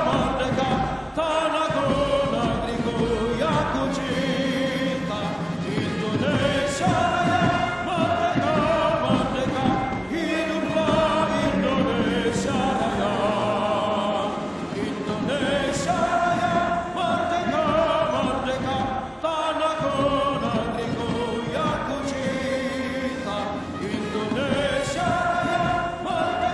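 A choir singing long, held notes with a military marching band, its drums beating steadily underneath.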